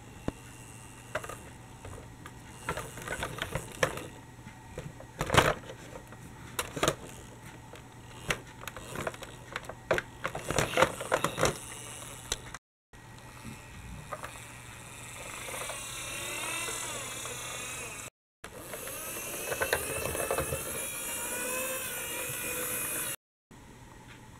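Plastic clicks and knocks from a toy articulated trolleybus being handled and pushed over plastic toy track. About halfway through this gives way to a steadier hiss with wavering, gliding tones, broken by a few abrupt cuts.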